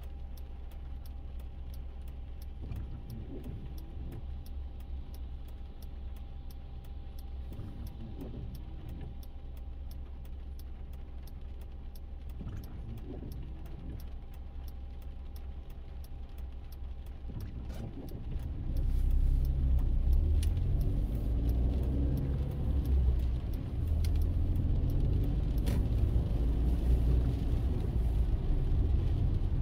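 Car engine and road noise from inside the cabin, a low steady rumble with a rapid, even ticking over it. About eighteen seconds in, the rumble grows much louder and heavier as the car gets moving.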